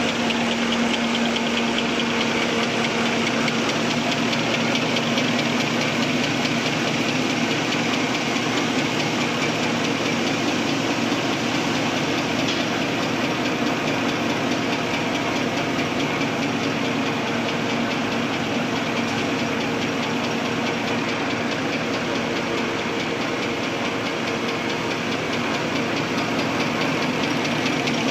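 XY-OQ-7000K double-deck automatic serviette folding machine running at production speed: a steady, rapid mechanical clatter over a constant hum.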